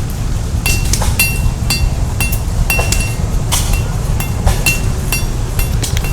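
Blacksmith's hammer striking an anvil at a steady pace of about two blows a second, each blow leaving a bright metallic ring, over a steady low rumble.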